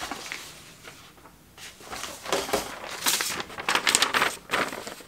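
A sheet of paper rustling and crackling as it is handled, in irregular spells through the second half.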